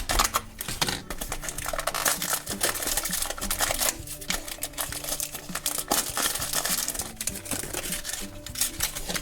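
Toy packaging crinkling and tearing as a surprise pack is opened by hand, with many small irregular crackles and clicks, over quiet background music.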